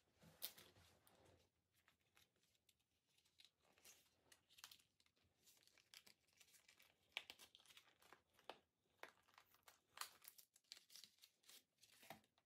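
Faint crinkling and tearing of plastic packaging being handled, a run of irregular short crackles.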